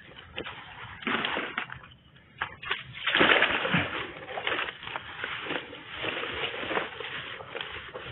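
Leaves, stems and grass rustling and crackling underfoot and against the body as a person pushes through dense brush and walks into tall grass, louder from about three seconds in.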